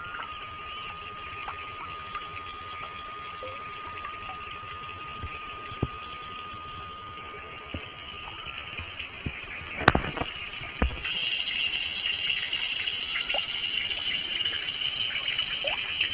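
Water running and gushing steadily, louder and brighter from about eleven seconds in, with a few knocks just before the change.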